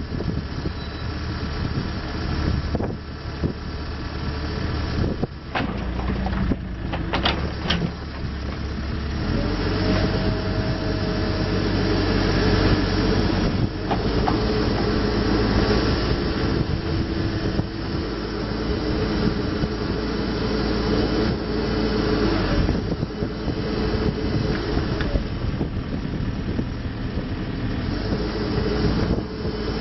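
Case 580SM-II backhoe loader's diesel engine running, its tone and load shifting up about nine seconds in, with a few sharp knocks a few seconds earlier.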